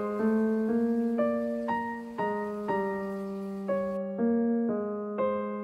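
Background piano music: a gentle melody of single notes struck about twice a second, each fading before the next.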